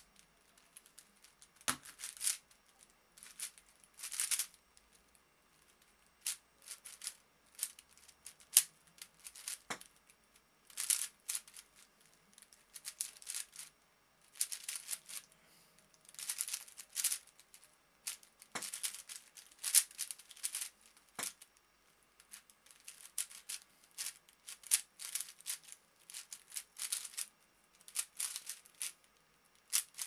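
A YuXin 4x4 speed cube being turned fast by hand: bursts of rapid plastic clicking and rattling as the layers turn, broken by short pauses.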